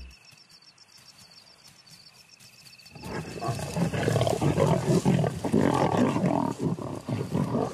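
Faint cricket chirping, then about three seconds in a pride of lions breaks into loud, rough snarling and growling as they squabble over a kill. The noise stays dense and irregular to the end.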